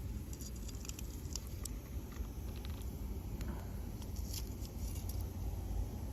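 Wood campfire crackling: scattered sharp pops and ticks over a steady low rumble.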